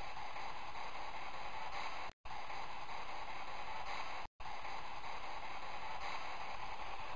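Steady radio static hiss from a spirit box sweeping through stations. It drops out twice, briefly, about two and four seconds in.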